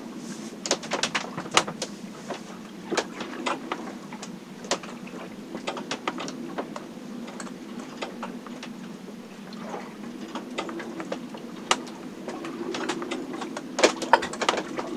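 Sailboat cabin in a storm: irregular sharp clicks and knocks of the boat's fittings, loudest at about a second and a half in and again near the end, over a steady low hum.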